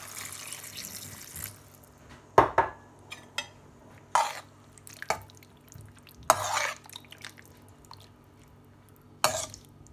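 A cup of water poured into a hot wok of sauce, hissing for about the first second and a half. Then a metal spoon scrapes and knocks against the wok about six times as the mix is stirred, one scrape longer than the rest.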